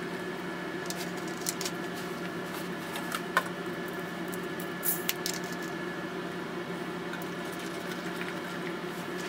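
Soda poured from plastic bottles into plastic cups: brief liquid splashes and a few light knocks of bottle and cup over a steady hum.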